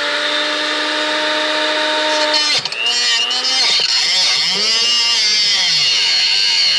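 Angle grinder with a cut-off wheel cutting into a cast aluminium Honda H22 intake manifold. The motor whines at a steady pitch for the first two and a half seconds, drops briefly, then its pitch wavers up and down as the disc bites into the metal.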